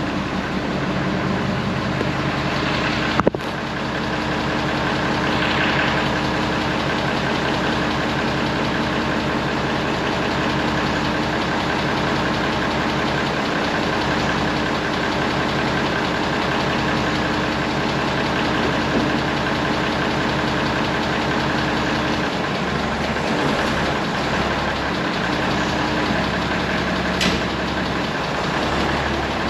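Tractor diesel engine idling steadily, with one sharp knock about three seconds in.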